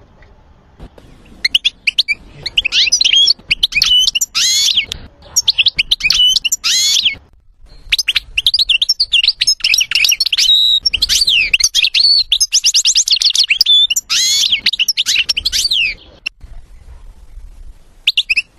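European goldfinch singing: rapid, varied twittering phrases full of quick chirps and trills. It breaks off briefly about seven seconds in and mostly stops after about sixteen seconds, with one short phrase near the end.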